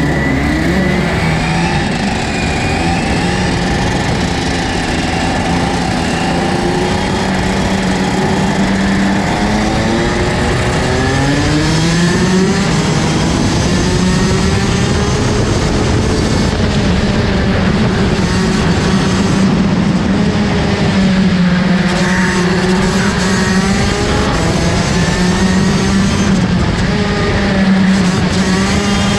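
Rotax Max DD2 racing kart's 125cc two-stroke engine heard onboard at race speed, its pitch climbing and dropping over and over as the kart brakes for corners and accelerates out of them.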